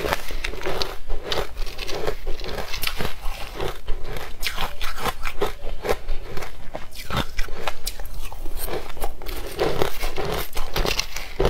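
Crunching and chewing of coloured crushed frozen ice, picked up close by a clip-on microphone: a dense run of quick, sharp crunches.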